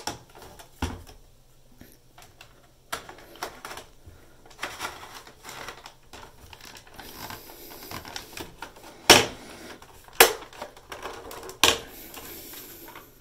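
PS4 Slim's hard drive caddy, holding a new SSD, being slid back into the console's drive bay: plastic scraping and light handling clicks, then three sharp clicks in the last few seconds, the first the loudest, as it seats snugly.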